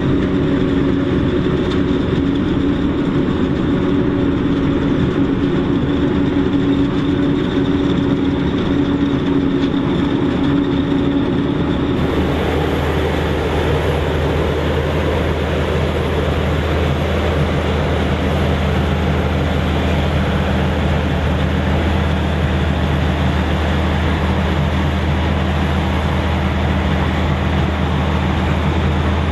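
John Deere 9000-series self-propelled forage harvester running under load while chopping maize: a loud, steady engine drone over the rushing hiss of the crop going through the machine. About twelve seconds in, the sound changes suddenly to a lower, steadier drone.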